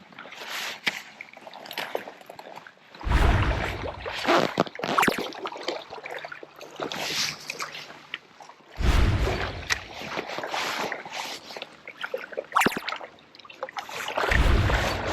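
Water sloshing and trickling with small splashes, scattered light clicks and knocks, and three louder, deeper surges about five or six seconds apart.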